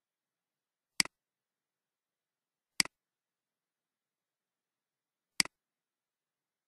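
Three computer mouse clicks, each a quick double tick of button press and release, spaced one to three seconds apart.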